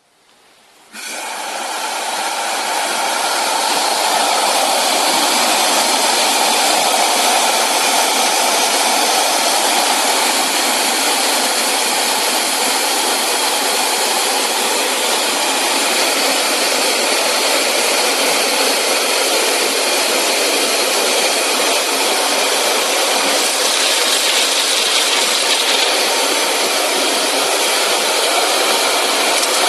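Compressed-air-driven wet/dry vacuum cleaner switched on about a second in, its rush of air building over a few seconds and then running steady and loud.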